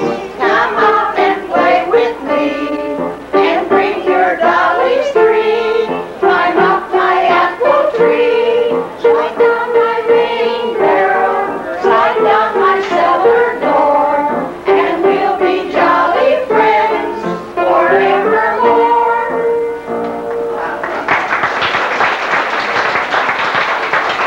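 A kitchen band plays a lively tune, with horn-like melody notes over a steady rhythm. About three-quarters of the way through the music stops and applause takes over.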